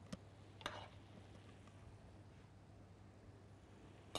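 Near silence: a low steady room hum, with a couple of faint, brief rustles of filling being spooned onto puff pastry and a small click near the end.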